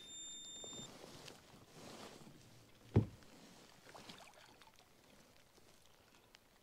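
Small handling sounds aboard a fishing kayak, with one sharp knock about three seconds in as the long-handled landing net is pulled from its holder.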